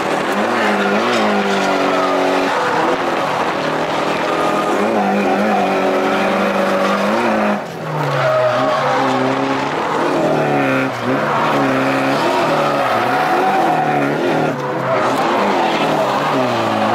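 Nissan 180SX's turbocharged four-cylinder engine heard from inside the cabin, revs swinging up and down again and again while the car drifts, with tyres skidding. The rear tyres are grippy Kenda KR20s, so the engine is being worked hard to keep the car sliding.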